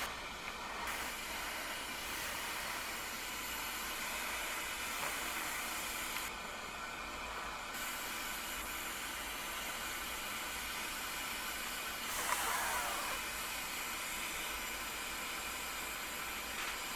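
Jeweller's soldering torch flame hissing steadily while heating silver solder, with a brief wavering swell about twelve seconds in.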